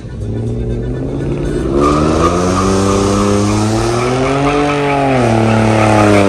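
Pickup truck doing a burnout: the engine is held at high revs that climb slowly, peak about four and a half seconds in and drop back a little, with the rear tyres squealing against the pavement from about two seconds in.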